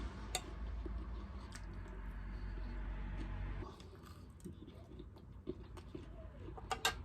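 A person chewing crispy chicken, with scattered small crunches and clicks. A low steady hum underneath stops about halfway through.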